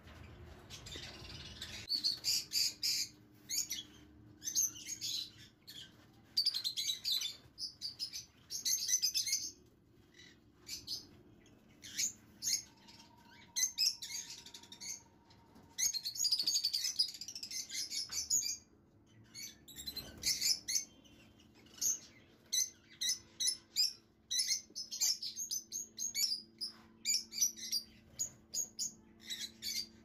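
Lovebirds chirping in many short, high-pitched bursts of rapid cheeps, repeated irregularly throughout.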